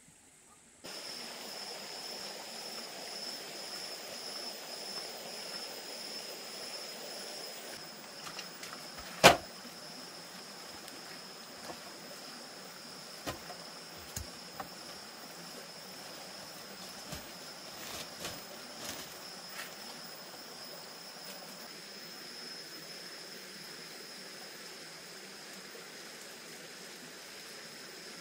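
Steady outdoor background hiss with a high, steady buzzing tone. One sharp, loud knock comes about nine seconds in, and a few lighter knocks and taps follow over the next ten seconds.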